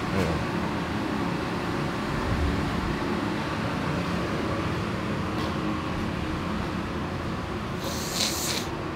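Steady noise of a handheld phone being carried along while walking, with a short hiss near the end.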